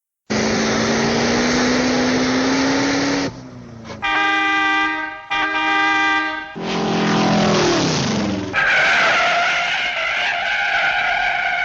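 A run of cartoon car sound effects: a car engine rising in pitch, two long horn honks, a falling engine sound, then a long tyre screech.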